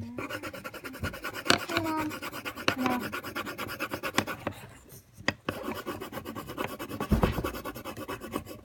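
Pencil scratching rapidly back and forth on paper in fast colouring strokes, with a short pause about five seconds in.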